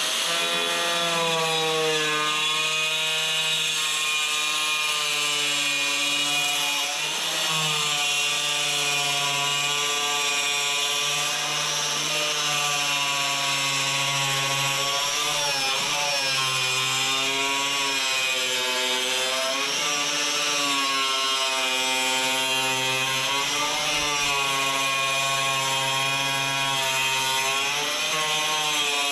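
Compact circular saw running and cutting through a plastic barrel, with its blade set shallow. The motor whines steadily over the hiss of the blade in the plastic, and its pitch sags and recovers several times as the load changes.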